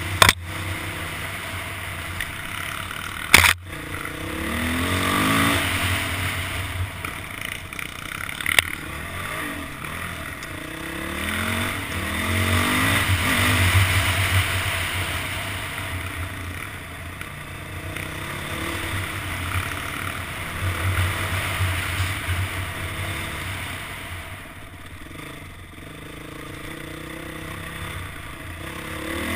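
Dirt bike engine revving up and falling back repeatedly as the bike is ridden along a rough trail, picked up by a helmet-mounted camera. A few sharp knocks come through, the loudest about three and a half seconds in.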